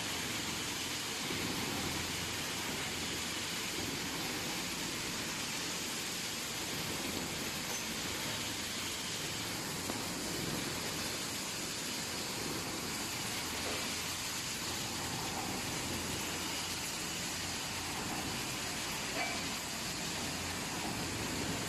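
An automatic steel wire mesh welding machine running, heard as a steady, even noise with no clear beat.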